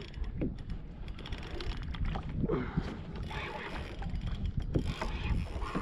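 Wind buffeting the microphone over the wash of sea water around a fishing kayak.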